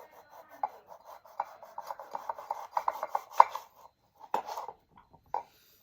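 Knife sawing through limes, a quick run of rasping strokes with a couple of sharper knocks near the middle.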